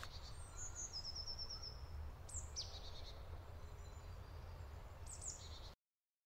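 Forest birds calling faintly over a low steady rumble: a quick series of high notes about half a second in, high falling calls about two and a half seconds in, and more calls near the end. The sound cuts off suddenly shortly before the end.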